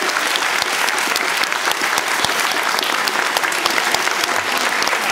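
Steady, sustained applause from a large audience of schoolchildren and adults: many hands clapping at once, dense and continuous.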